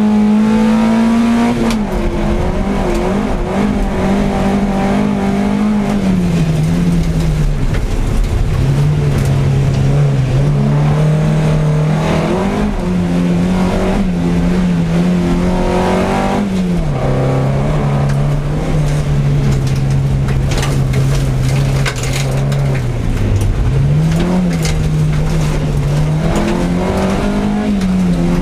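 Folkrace car's engine heard from inside the stripped cabin, running hard through a heat: the revs climb and drop again and again as the driver shifts and lifts off the throttle. A few knocks from the underbody about two-thirds of the way through.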